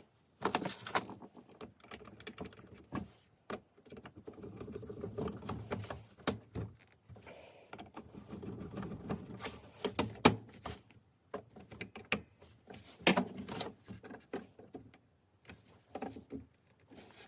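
Irregular clicks, taps and knocks of parts being handled and fitted by hand while reassembling a Makita DSS611 cordless circular saw, with softer rustling between them and a few louder knocks in the second half.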